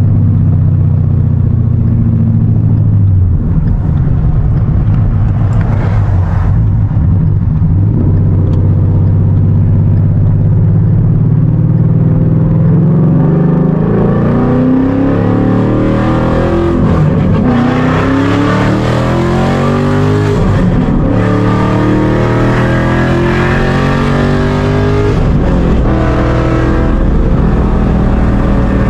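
Ford Mustang GT's 5.0 V8 running through an open dump exhaust, heard from inside the cabin. It holds a steady low drone at first, then from about halfway pulls up in pitch several times, each rise dropping back as the car accelerates through the gears.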